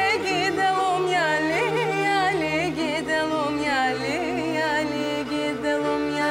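Background music: a wavering, ornamented melody over sustained low notes.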